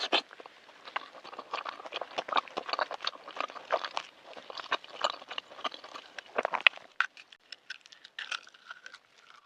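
Close-miked wet chewing and lip-smacking on a mouthful of balut (fertilized duck egg): a dense run of small clicks and squelches that thins out after about seven seconds.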